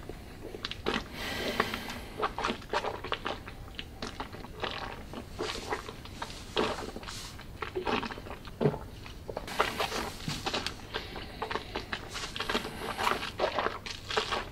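Mouth sounds of a person tasting whisky: irregular wet clicks and smacks of tongue and lips as the spirit is held and worked in the mouth. Two longer breathy rushes come about a second in and again around ten seconds in.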